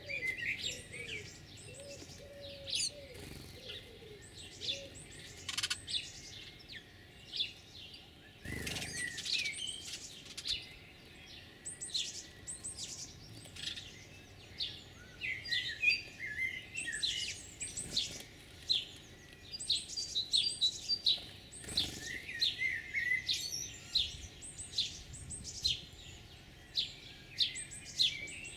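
Small birds chirping and calling over and over, many short notes. A dove coos low in the first few seconds, and there is a brief thump about eight and a half seconds in.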